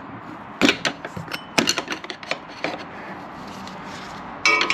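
Scattered metallic clicks and knocks from the shift cable and its fittings on a 700R4 automatic transmission being pushed and worked into place, with a louder clank near the end.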